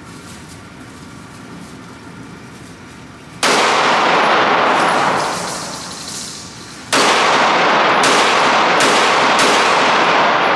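Semi-automatic pistol shots in an indoor shooting range: one shot, a pause of about three and a half seconds, then four more in quick succession, each ringing on loudly in the enclosed lane. The last shot empties the gun.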